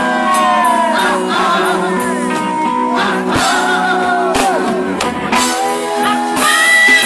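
Live band music: singers at microphones over a drum kit and electric guitar.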